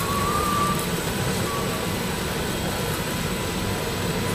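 Steady mechanical hum of a stretch-wrapping machine's turntable rotating a load while stretch film feeds onto it, with a faint short high tone in the first second.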